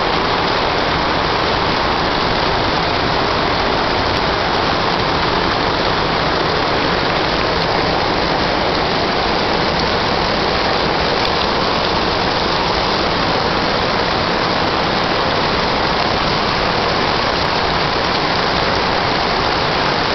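Heavy rain pouring down steadily, an even hiss of a downpour.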